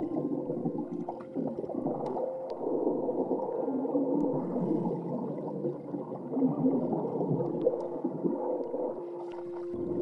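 Muffled underwater soundscape: low gurgling and bubbling with drawn-out moaning tones and a few faint clicks. A steady held tone comes in near the end.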